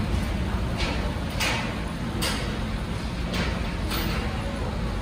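New York subway train running along the track, heard from inside the car: a steady low rumble with a brief rushing noise about once a second.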